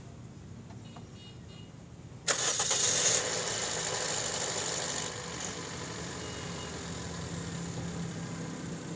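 Toyota VVT-i four-cylinder car engine cranked by the starter and catching about two seconds in. It runs high for a couple of seconds, then settles to a steady idle.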